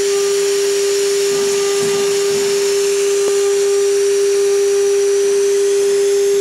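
Small CNC router's spindle running at constant speed with a steady whine while a fine engraving bit carves a relief into a wooden board, over a steady hiss.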